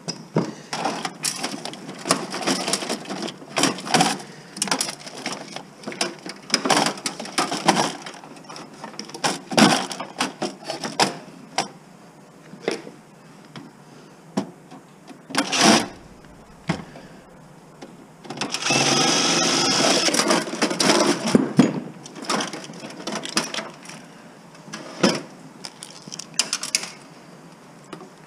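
Metal computer parts and screws clattering and clicking as a desktop PC is dismantled, with a cordless DeWalt driver running for about three seconds, two-thirds of the way in, backing out screws.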